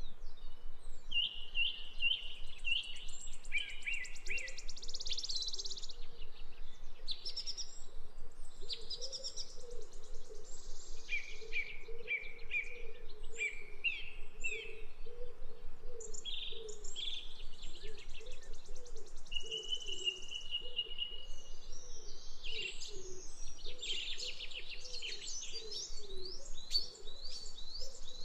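Many birds chirping, twittering and trilling over one another, a mix of short repeated notes, buzzy trills and a few held whistles, with a faint low wavering sound underneath.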